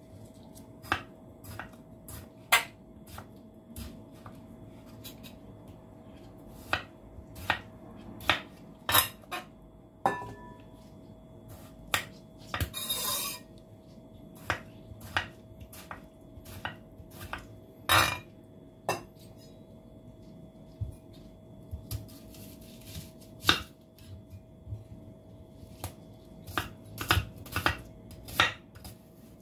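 Chef's knife slicing through a tomato and then a red onion, its blade knocking on a wooden cutting board in irregular sharp taps about one or two a second, with a brief rustling scrape about halfway through.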